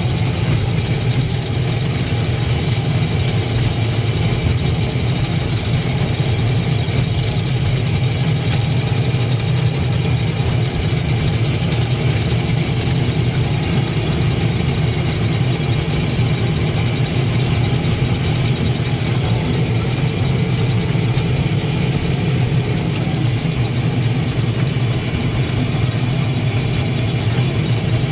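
Steady low drone of a moving amusement-park ride vehicle, its motor running evenly with no change in pitch.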